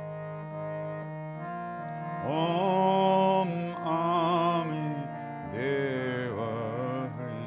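Kirtan: long, gliding sung phrases of a mantra over a steady harmonium drone. The voice comes in about two seconds in and again near six seconds.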